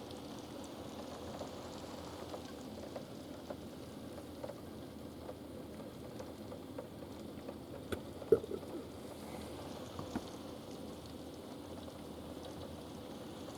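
Steady rain falling, with a few sharper taps of drops here and there, the loudest about eight seconds in.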